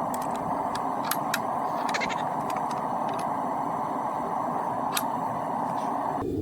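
Steady rushing roar of a propane forge burner, with scattered light metallic clicks and clinks throughout.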